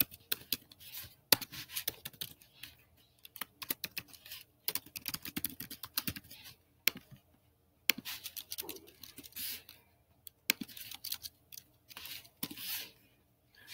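Typing on a computer keyboard: quick, irregular runs of keystroke clicks with short pauses between them.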